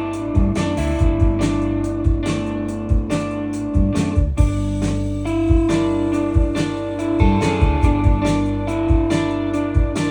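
Indie rock band playing live without vocals: guitars and electric bass over a steady, even drum beat.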